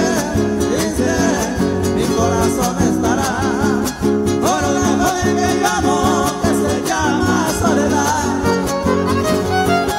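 Live huasteco-style string trio music: a violin melody with wide vibrato over steadily strummed guitar chords.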